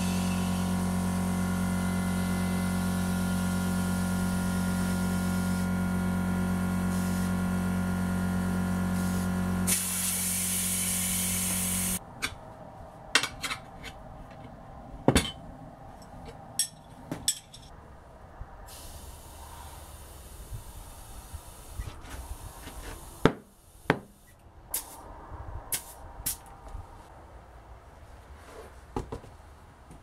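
Air compressor running steadily while air is fed through a gauge chuck into a motorcycle tyre on an alloy rim, with a loud hiss of air for the last two seconds before everything stops about twelve seconds in. After that come scattered sharp clicks and knocks of a tyre lever and hands working the tyre bead on the rim.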